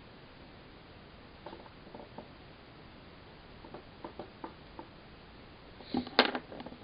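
Light scattered clicks and taps of small objects being handled on a desk, with a louder cluster of knocks about six seconds in.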